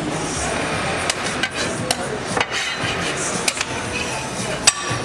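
A few sharp knocks and clacks at irregular intervals, the loudest near the end ringing like struck metal, over background music and a murmur of voices.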